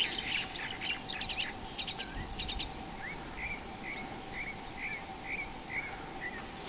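Small birds calling: quick clusters of high chirps in the first half, then a run of about eight short slurred whistled notes, roughly two a second.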